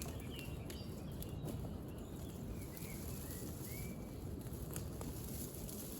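Steady low rumble of background noise, with a few short high chirps and scattered light clicks.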